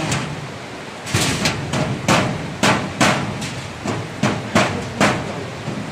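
An irregular series of about fifteen sharp knocks against the sheet-steel panels of a locker cabinet, coming two to four a second from about a second in and stopping near the end.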